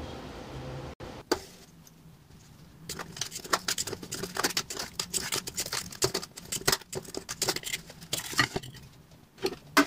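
A steady hum cuts off about a second in. Then a metal fork scrapes and clicks many times against the sides of an aluminium pan as a baked pizza is loosened and lifted out.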